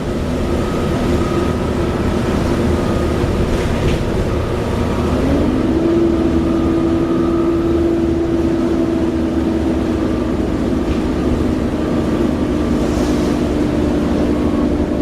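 Class 37 diesel-electric locomotive 37030's English Electric engine running loud and steady, with a whining tone that rises in pitch about five seconds in and then holds.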